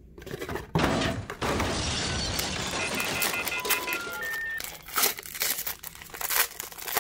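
Foil trading-card pack wrapper crinkling and tearing as it is pulled open by hand, close to the microphone, loudest from about a second and a half in to past the middle. A few short high tones sound over it around the middle.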